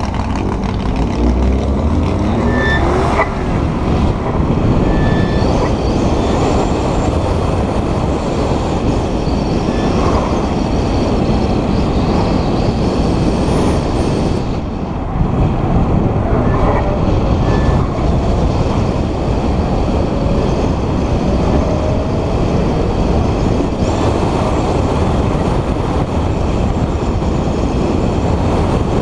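2009 VW Tiguan's turbocharged four-cylinder engine, together with tyre and wind noise, as the SUV is driven hard through an autocross course. Engine pitch rises and falls with the corners, and a few short high squeaks come through.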